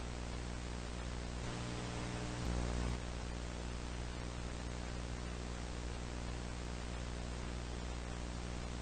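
Steady hiss with a low mains hum and its overtones: broadcast dead air during a stand-by pause. It swells slightly about two and a half seconds in.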